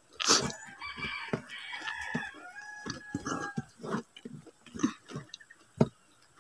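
A rooster crowing once, a long call from about a second in until nearly four seconds in. Close chewing and mouth sounds of someone eating with their hands run through it.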